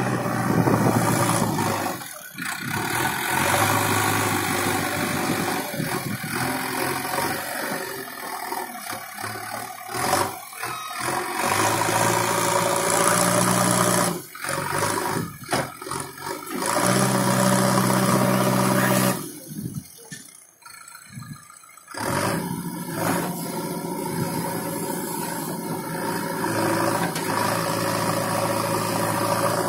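JCB 3DX backhoe loader's diesel engine running under load as the backhoe digs, with rattling from the machine. The sound drops away briefly several times, once for about three seconds near two-thirds of the way in.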